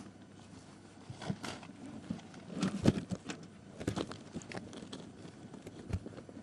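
Irregular crunching, rustling and soft knocks close to the microphone, loudest a little under three seconds in.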